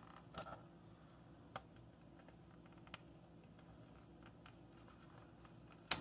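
Faint clicks and rustles of plastic wire-harness connectors and wires being handled over a refrigerator control board, with one sharper click near the end.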